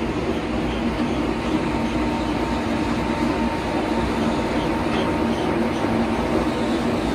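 Belt-driven ball mills running: big rotating steel drums tumbling their grinding media and charge inside, making a steady, loud rumble with a faint steady hum. They are grinding raw materials for ceramic ware.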